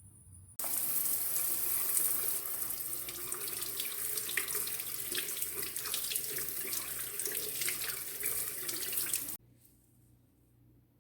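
Water running hard from a tap, switched on about half a second in and shut off abruptly about a second and a half before the end.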